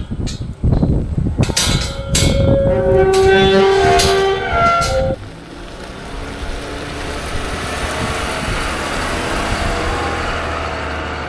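Clattering knocks and a held metallic squeal for about five seconds, then a steady machine hum.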